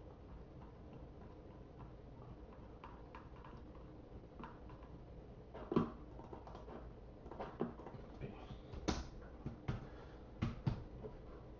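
Irregular clicks and taps of a computer keyboard and mouse being worked, sparse at first, then a cluster of louder key strikes in the second half.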